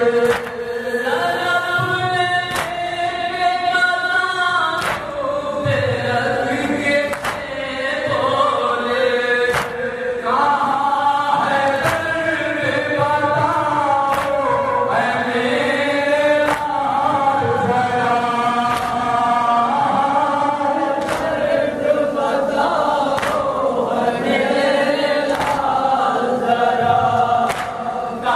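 Men reciting a noha, a Shia lament: a lead voice sings into a microphone and the group chants along. Sharp slaps from chest-beating (matam) keep time at about one a second.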